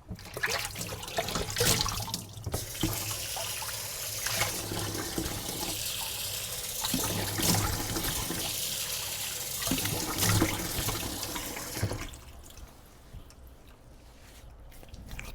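Tap water running into a sink, with irregular splashing, starting suddenly and stopping a few seconds before the end.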